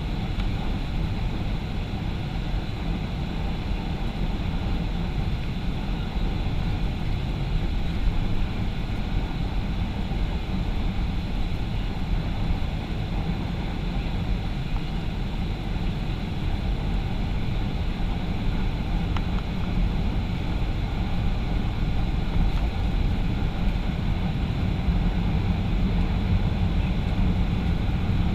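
Boeing 737-500's CFM56-3 engines and the airflow around the aircraft: a steady rumble with a faint high whine on top.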